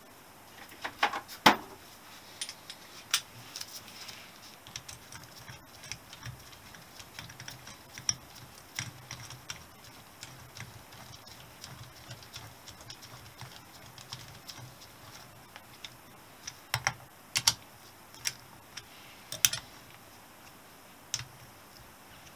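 Irregular sharp clicks and taps of hand tools and small parts against a Honda XL250S engine's cylinder head as a socket is fitted onto a head bolt. The clicks bunch together near the start and again about three-quarters of the way through, with sparser taps between.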